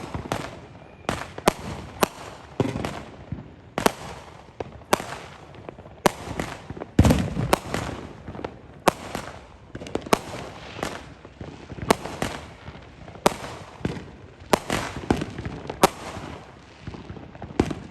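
Consumer fireworks going off in a run of sharp bangs and pops, about one or two a second. The loudest and deepest blast comes about seven seconds in.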